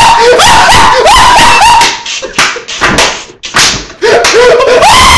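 A man laughing hard in loud, high-pitched whoops. Several sharp smacks come in the middle, and the laughing starts again about four seconds in.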